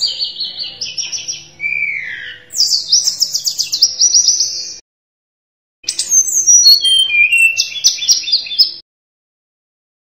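Male tledekan gunung, a Cyornis blue flycatcher, singing two phrases of fast whistled notes and trills about a second apart; the second phrase steps down in pitch.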